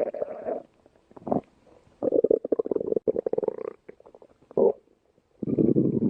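Stomach growling in several separate bursts of rumbling, the longest about a second and a half, with short quiet gaps between them.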